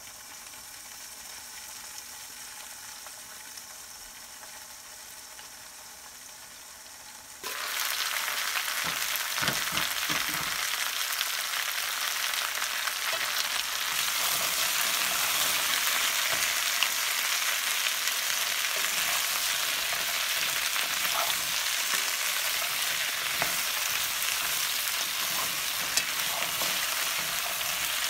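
Potato wedges, carrot and onion frying in a pan: a muffled sizzle under a glass lid at first, which turns suddenly much louder about seven seconds in. From then on the sizzling goes on as two wooden spatulas stir and toss the vegetables, with a few soft knocks.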